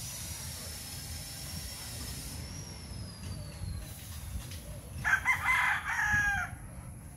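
A rooster crowing once, about a second and a half long, choppy at the start and ending in a long falling note.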